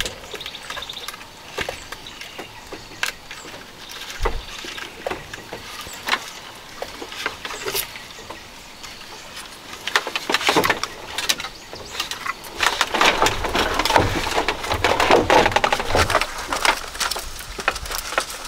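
A clump of dry roots, bark and leaves handled in the hands, crackling and rustling with scattered sharp snaps, thickening into a longer stretch of crackling past the middle.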